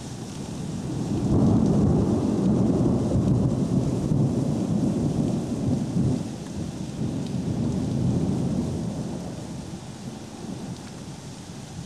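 Thunder rumbling long and low, swelling about a second in, rolling for several seconds with a second swell, then slowly dying away, over a steady hiss of rain.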